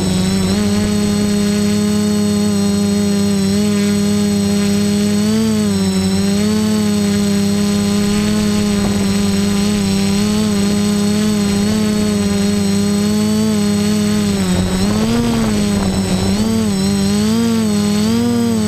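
Quadcopter's electric motors and propellers running in flight with a steady buzzing hum. The pitch briefly dips and rises several times as the throttle changes, most noticeably about six seconds in and again near the end.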